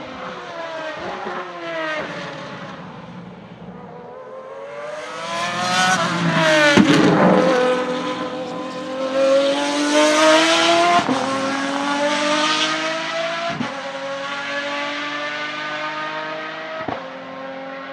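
Pagani Zonda Revolución's 6.0-litre Mercedes-AMG V12 on track. The revs sag into a corner, and the engine is loudest as the car passes about seven seconds in. It then accelerates hard away with rising pitch, cut by three upshifts spaced further apart each time, and fades as it goes.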